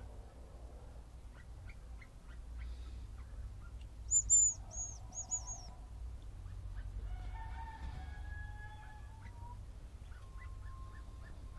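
Hazel grouse singing: a run of very high, thin whistles about four seconds in, one longer note followed by a quick series of short ones.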